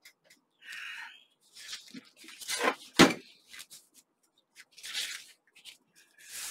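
Paper rustling and sliding as the pages and cover of a spiral-bound notebook are pressed and turned by hand, with one sharp thump about three seconds in as the notebook is shut, then more rustling as it is opened again.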